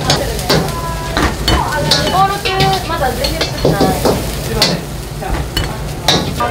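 Fried rice sizzling in a steel wok over a gas burner, with a metal ladle clanking against the wok again and again at an irregular pace.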